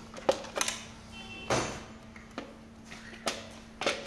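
Hoverboard's plastic bottom shell being worked loose and lifted off by hand: a string of separate plastic clicks and knocks, the loudest about a second and a half in.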